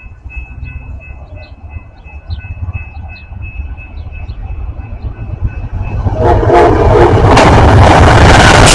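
Amtrak passenger train led by a GE Genesis diesel locomotive approaching and passing at speed. A low rumble builds, the locomotive horn sounds briefly about six seconds in, and then comes the loud rush of the train going by.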